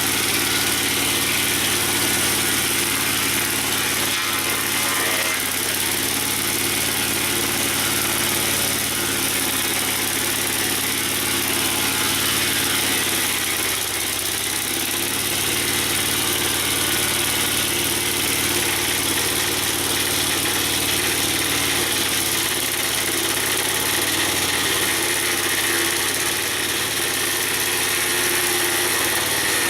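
Engine of a Mobile Dimension portable sawmill running steadily, with a brief dip in pitch about halfway through.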